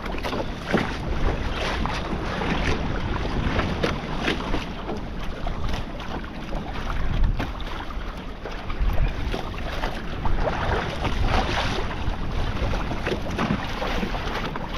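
Wind buffeting the microphone over choppy sea, with water slapping and splashing against a fishing kayak's hull, in rough conditions.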